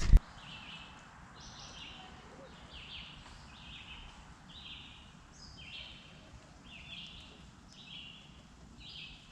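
A bird calling over and over, a short chirp repeated a little more than once a second against a faint outdoor background. A single sharp knock comes right at the start.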